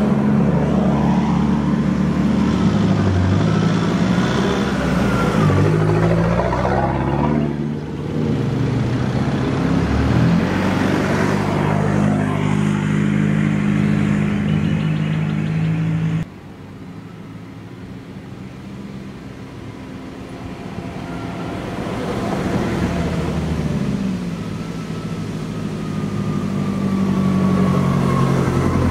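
Four-wheel-drive vehicles driving past one after another on a soft sand track, their engines working and changing pitch as they pass close by. The sound drops suddenly about halfway through, then builds again as another vehicle approaches, louder near the end.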